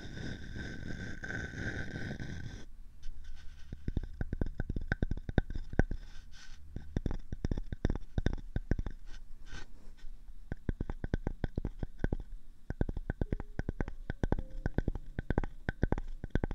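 Close-miked ASMR scratching and rustling against the ears of a binaural microphone. A dense rustle in the first few seconds gives way, about three seconds in, to a fast, irregular run of crackling clicks.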